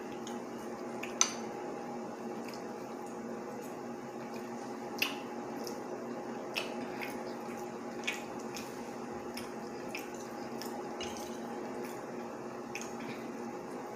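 Metal fork clicking and scraping against a plate several times, the loudest click about a second in, with soft wet chewing of chicken and rice, over a steady background hum.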